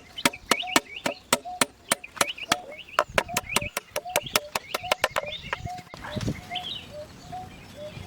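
Quick, even chopping, about four strokes a second, that stops about five seconds in, over chickens clucking steadily throughout.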